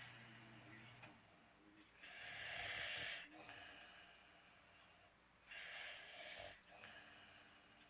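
Faint snoring: two hissing, rasping breaths, each about a second long and roughly three and a half seconds apart.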